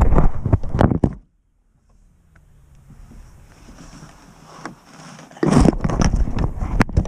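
Handling noise on the action camera's microphone: rustling and knocks in two loud bursts, broken by a sudden second of silence after about a second and only faint noise until the second burst starts past the five-second mark.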